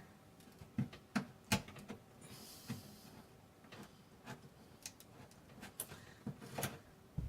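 Knife blade working at thin wood molding around a door's glass pane, prying to loosen it: a dozen or so faint, irregular clicks and small taps, with a brief hiss about two and a half seconds in.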